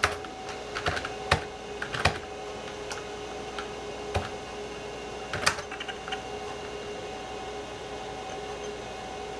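Typing on a computer keyboard: a run of irregular key clicks, then a few scattered keystrokes around the middle, over the steady hum of a running computer.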